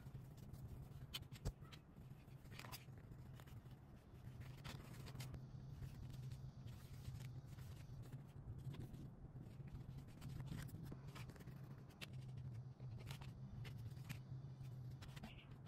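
Faint rustling and scattered small clicks of fabric and thread being handled and pulled through during hand-stitching, over a steady low hum.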